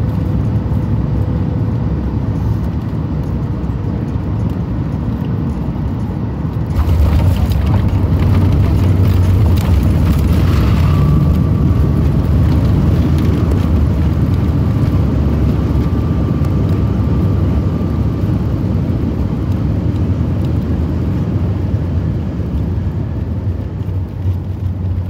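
Cabin noise of a Boeing 737 MAX 9 landing: a steady rush of air and engines, then about seven seconds in a sudden louder roar as the jet touches down and its CFM LEAP-1B engines go into reverse thrust. A thin whine runs through the middle of the roar, and the noise eases off slowly as the airliner slows on the runway.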